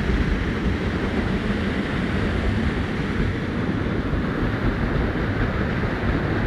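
Waterfall: falling, rushing water making a steady, dense noise that holds at one level throughout.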